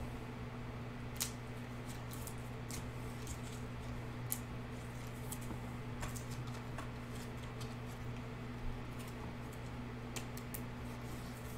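Sparse light clicks and rustles of trading cards being handled and slid into clear plastic sleeves and top loaders, over a steady low hum.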